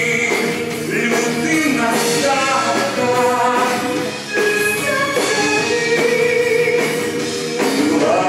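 Live musical-theatre duet: a man and a woman singing into microphones over an orchestra with strings, the voices holding long notes.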